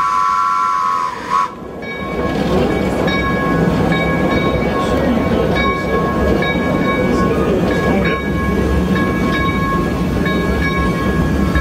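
Steam whistle of a 1935 Orenstein & Koppel two-foot-gauge steam locomotive, held on two notes at once, cutting off about a second and a half in. After it, the locomotive's steady steam and running noise continues, with faint thin whistle tones coming and going.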